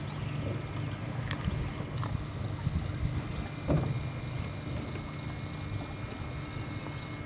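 Canoe moving on calm water: a low, steady rumble of water and hull noise with a few light knocks, the loudest about four seconds in.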